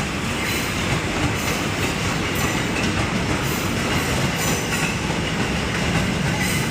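KRL electric commuter train passing close by, its wheels running steadily over the rails, with a few faint light clicks.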